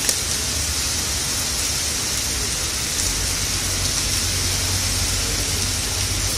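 Heavy rain falling steadily, a dense even hiss, with a low rumble underneath that grows a little stronger about three seconds in.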